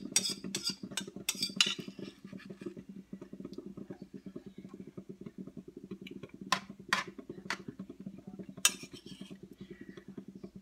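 Kitchen utensil clinking and scraping against a mixing bowl and metal pan while crab cake mixture is scooped out: a quick run of clicks at first, then a few separate clinks later on, over a steady low hum.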